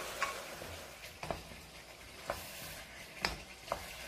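Pork and chili-paste sauce sizzling in a frying pan over high heat while wooden spatulas stir it, knocking against the pan about five times.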